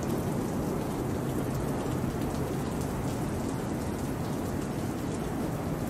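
Heavy rain and wind of a severe thunderstorm: a steady, unbroken rushing with no distinct thunderclap.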